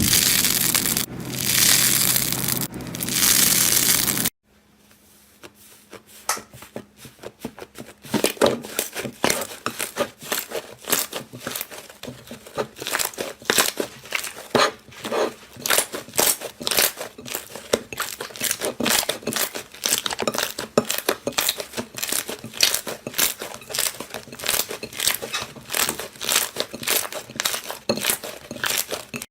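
Slime being squeezed and pressed by hand, giving a dense, irregular run of crackles and pops, several a second. It is preceded by a loud rushing noise that cuts off suddenly about four seconds in.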